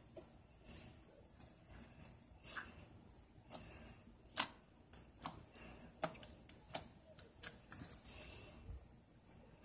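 Slime being stretched, folded and pressed by hand, giving small irregular clicks and pops, the loudest about four and a half seconds in.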